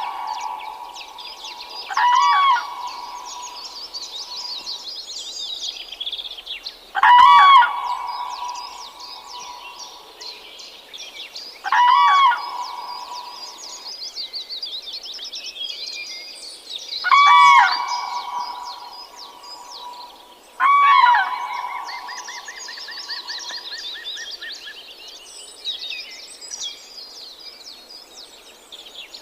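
Hornbills calling: five loud, arching calls about five seconds apart, each with a ringing tone trailing after it, over a steady chorus of high chirping from many birds.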